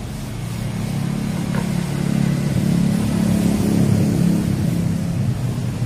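A low engine hum that grows louder from about a second in, peaks a little past the middle and eases off slightly near the end.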